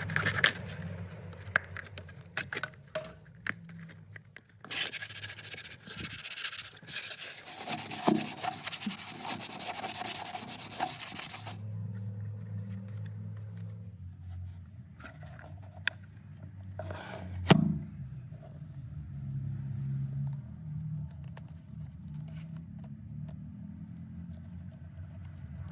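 Rubbing and scraping from hand work on a damaged pipe during a makeshift repair, with a long stretch of coarse rasping in the first half and scattered clicks and knocks, one louder knock about two-thirds through.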